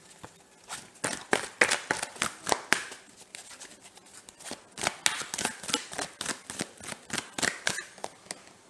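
A deck of tarot cards being shuffled by hand: quick, irregular slaps and flutters of cards against each other. There is a short lull about three seconds in before the shuffling picks up again.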